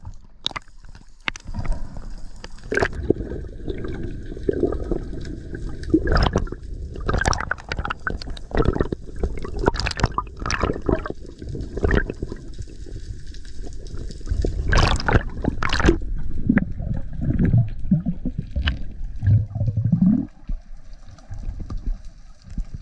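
Underwater sound heard through a camera housing: water churning around the camera with a low rumble and many irregular knocks and thuds. Near the end there is a short rising sound, and then it quietens.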